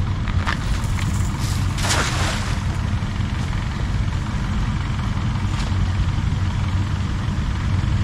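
Heavy rain falling, heard as a steady low rumble with a hiss above it; a brief louder rush of noise about two seconds in.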